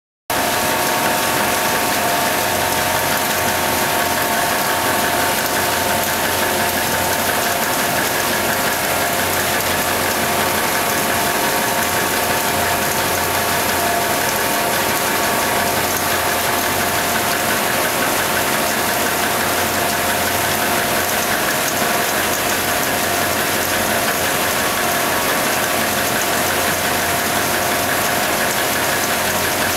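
Maxson paper sheeter running, its paper web travelling over the steel rollers: a loud, steady mechanical din with a constant whine of several tones. It starts abruptly just after the beginning.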